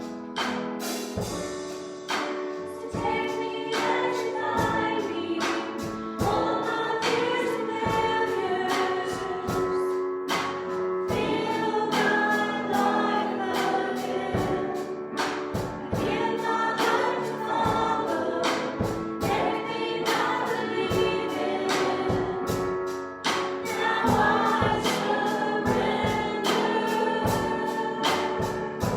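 Gospel worship song: voices singing together over accompaniment with a steady drum beat.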